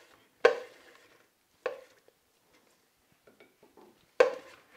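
Kitchenware knocking together: four sharp knocks, each with a short ring, spread irregularly, with a few faint clicks between them.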